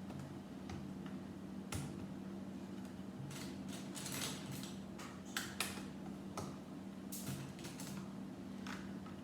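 Lego plastic pieces clicking and scraping as girder track pieces are handled and pressed onto a brick build: irregular sharp clicks with a few short rustling scrapes.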